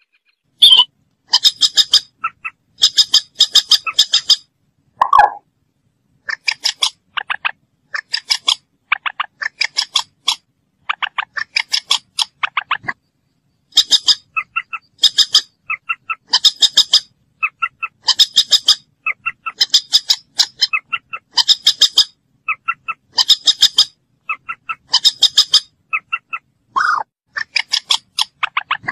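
Common moorhen calling: short bursts of rapid, high-pitched clicking notes repeated about once a second, with a couple of lower single calls in between.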